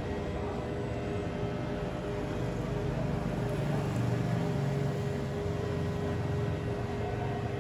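Steady drone of a running machine, with one constant hum tone over a low rumble that grows a little louder about halfway through.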